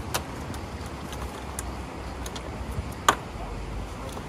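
Metal clicks and knocks from a roof-rack mount as a folding hammock stand's fitting is worked loose by hand, with one loud, sharp clack about three seconds in, over a steady low rumble.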